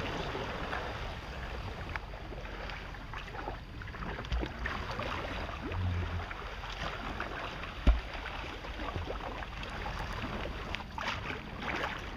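Kayak paddling: paddle strokes splashing and dripping in calm river water, with a single sharp knock about eight seconds in.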